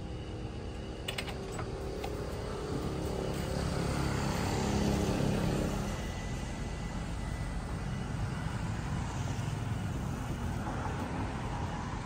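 A motor vehicle engine passing, growing louder to a peak about five seconds in, then easing into a steady traffic hum. A few light clicks sound about a second in.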